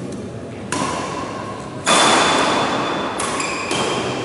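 Badminton rackets striking a shuttlecock in a rally, four sharp hits about a second apart with the last two close together, each ringing on in a reverberant hall.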